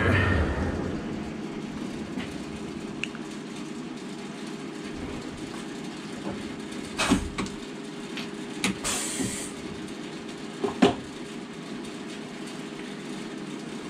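Tool change on a CNC mill: a few sharp metallic clicks and knocks as an end mill in its tool holder is handled at the spindle, and a short hiss of air about nine seconds in, over a steady machine hum.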